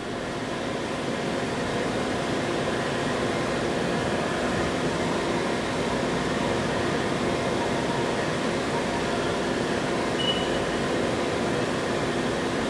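Haas UMC-750 five-axis CNC mill machining a metal part under flood coolant: a steady cutting and spindle sound with a few constant tones over the spray of coolant, fading in over the first second.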